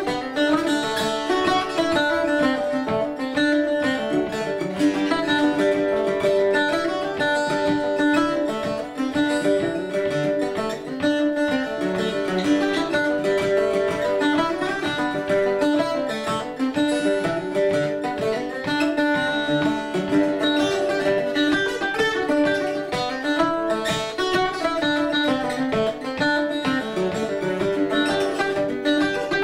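Solo acoustic long-necked plucked string instrument played live, picking a quick Irish jig melody over steady ringing low notes.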